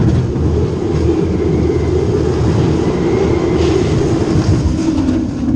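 Psyké Underground indoor roller coaster train running along its track, a loud steady rumble.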